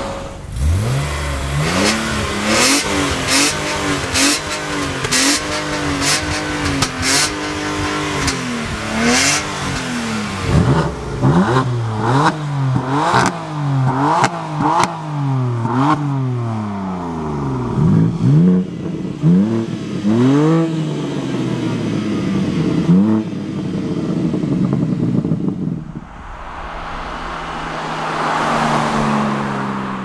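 BMW M3's twin-turbo 3.0-litre straight-six being revved over and over, its pitch climbing and dropping in quick blips. A run of sharp cracks from the exhaust comes in the first ten seconds.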